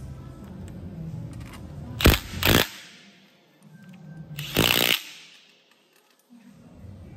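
Makita cordless impact driver with a socket hammering bolts down on the hydraulic cylinder's head flange in short bursts: two quick bursts about two seconds in and a longer half-second burst about five seconds in.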